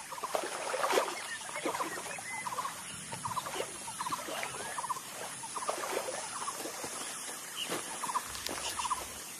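A chorus of short, high squeaky animal calls, some rising and some in quick little runs, repeating irregularly throughout.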